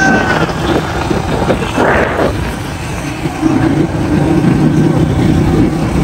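Motor vehicle running on a road, a loud low rumble of engine and road noise, with a brief rush of noise about two seconds in and a steadier engine hum in the second half.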